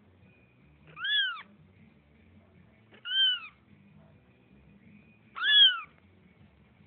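Domestic cat meowing three times: short, high meows that each rise and then fall in pitch, spaced about two seconds apart.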